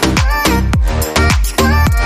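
Loud electronic dance music with a steady thumping beat.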